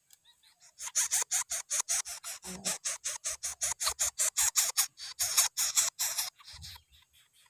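Nestling coucal making a fast rasping series, about six or seven harsh pulses a second for some five seconds, with a short low grunt partway through.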